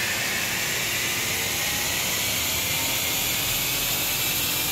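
Ford Explorer ST held at speed on an all-wheel-drive chassis dyno, making a steady, hiss-like rush of tyres, rollers and engine with no rise in pitch.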